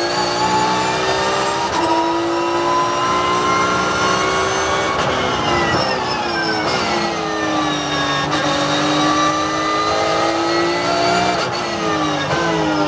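Porsche 911 GT3 Cup's flat-six race engine heard from inside the cockpit at high revs. Its note climbs under full throttle for about five seconds, then falls away as the driver lifts and brakes, and climbs again. Near the end the pitch jumps up with a downshift into third and falls under braking.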